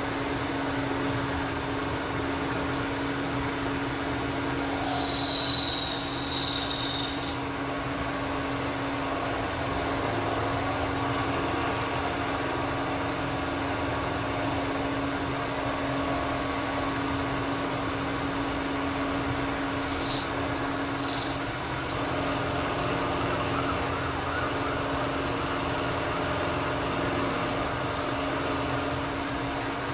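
Bridgeport vertical milling machine running on a variable frequency drive, its end mill cutting around the outline of a spacer block, with a steady motor hum. A brief high falling tone sounds about five seconds in, and two short high chirps come about twenty seconds in.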